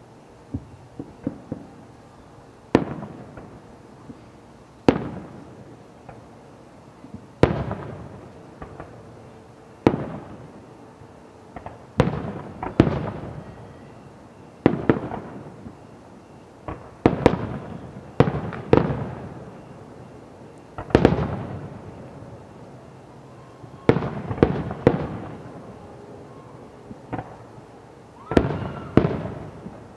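Aerial fireworks going off in a steady series of sharp booms, about one every two seconds, each followed by a rolling echo, with smaller crackling pops between them.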